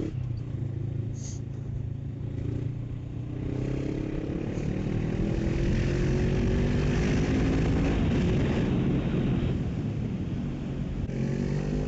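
Honda CB500F motorcycle's parallel-twin engine pulling under acceleration, its pitch rising over several seconds and then easing off before climbing again near the end, under a steady rush of wind noise.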